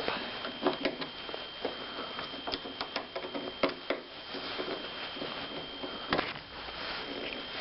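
Small metal clicks and scratching as a wire retaining clip is worked off the end of a car's gas-charged hood prop rod by hand, with a somewhat louder click about six seconds in.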